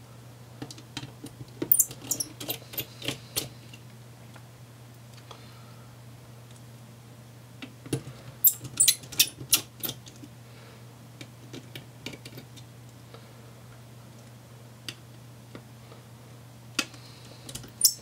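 Rapid small metallic clicks of a precision Phillips screwdriver working tiny screws out of a laptop fan shroud, in bursts about two seconds in, about eight seconds in and again near the end, over a steady low hum.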